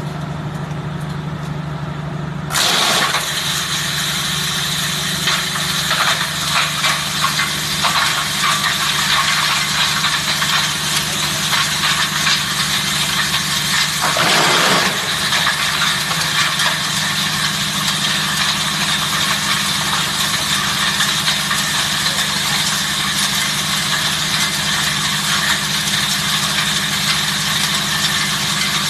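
VX350 disc-hammer wood chipper driven by its 5.5 kW 380 V electric motor, at first running empty with a steady hum. About two and a half seconds in, wood goes in and it chips with a loud, continuous grinding crackle over the motor.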